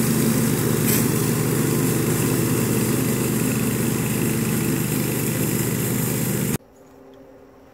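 Walk-behind gas lawn mower's small engine running steadily as it cuts grass. The sound breaks off abruptly near the end, leaving a quiet background.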